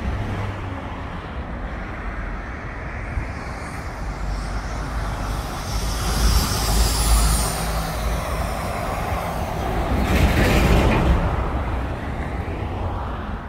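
Street traffic: a steady low rumble of engines and tyres, with passing vehicles swelling the noise twice, loudest about ten seconds in.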